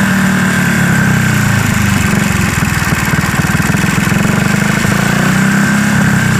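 Single-cylinder four-stroke motorcycle engine running steadily with evenly spaced firing pulses, its idle screw being turned down toward a low idle of about 1200–1500 RPM after the air-fuel mixture screw was set at the highest RPM during carburetor tuning.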